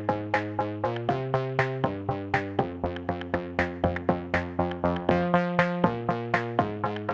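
Electronic music: a steady beat of about four hits a second over sustained synthesizer chords that change roughly once a second.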